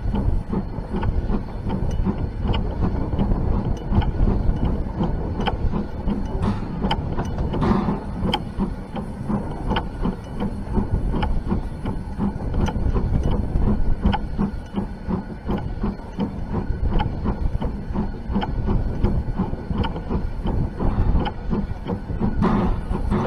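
Hunslet-built steam locomotive Y542 running along the track, heard from its front buffer beam. A steady low rumble runs throughout, with frequent sharp clicks of the wheels over rail joints and points.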